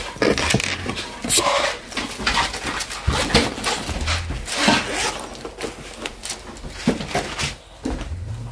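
Bible pages being turned, with irregular rustling and shuffling noises.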